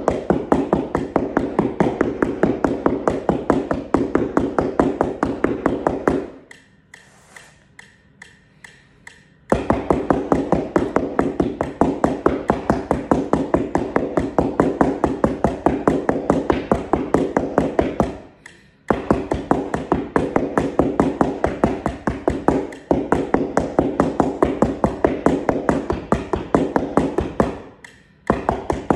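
Two keyboard mallets striking a one-octave practice keyboard laid on the floor, in rapid, even tapping strokes at about six a second. The playing stops for about three seconds some six seconds in, and briefly twice more later.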